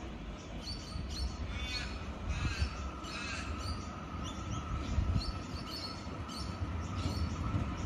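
Birds calling, with harsh crow-like caws among them, over the low rumble of a Tait electric train drawing closer. A steady high whine sets in about two seconds in and holds.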